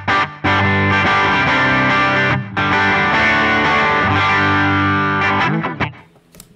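Electric guitar played through a Line 6 Helix amp model with an analog double-tracking preset: chords ringing out with short breaks at the changes, then a few quicker notes that die away near the end.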